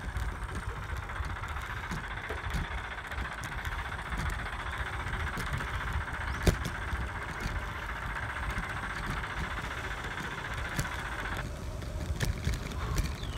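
Wind rumbling on the microphone of a phone carried on a moving bicycle, with a steady higher hiss that stops abruptly near the end and a single sharp click about halfway through.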